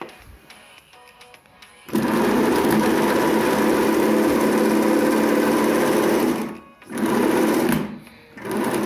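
Homemade electric car's 250 W electric motor running under power, whirring through a hand drill's reduction gearbox and driving the wheel by chain. It starts suddenly about two seconds in, runs steadily for about four seconds, dies away, then is blipped on twice more near the end.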